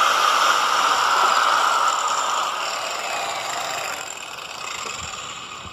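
Angle grinder fitted with a grinding wheel running with a high whine. Over the last few seconds its pitch slowly drops and it grows quieter, stopping at the end.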